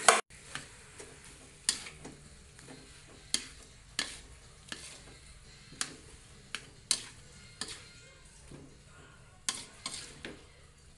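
Metal spatula knocking and scraping against a steel wok while stir-frying rice for nasi goreng, in sharp irregular strikes about one to two a second. A loud knock comes right at the start.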